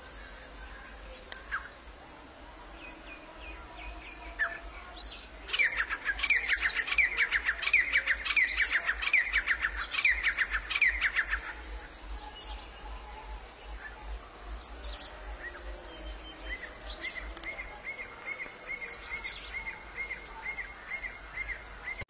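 Francolin calling: a loud, rapid run of sharp notes lasting about six seconds, then, near the end, an even series of shorter notes about two a second. A few short high whistles sound now and then.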